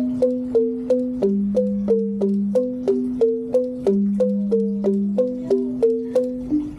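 Rindik, a Balinese bamboo xylophone, being played: a steady run of struck notes about three a second, an upper melody over a lower part that steps between two pitches.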